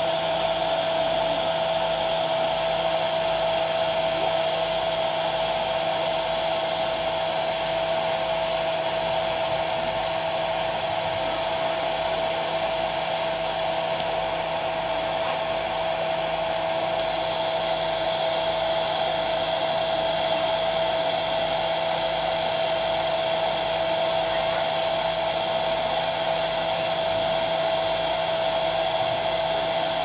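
Hand-held electric hair dryer running steadily: a constant rush of blown air with a steady whine that does not change.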